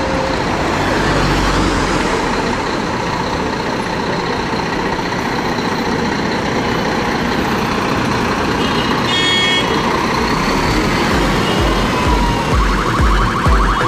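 Loud, steady road traffic with a large vehicle going past. Near the end an emergency-vehicle siren starts up with a rising wail that turns into a fast warble.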